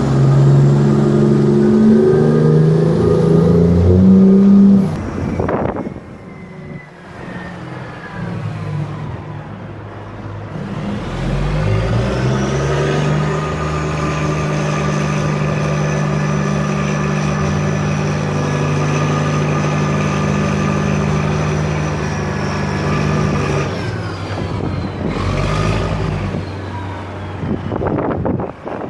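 Heavy diesel machinery running. First a dump truck's engine revs, its pitch stepping up and down, and it stops suddenly about five seconds in. From about twelve seconds a steady engine drone with a faint high whine above it comes from the crane loading a dump truck, fading near the end.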